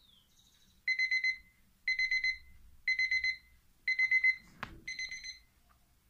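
Smartphone alarm beeping: quick bursts of about four beeps, one burst a second, five bursts in all. About four and a half seconds in, a tap on the handset is heard, and the alarm stops after one more, fainter burst.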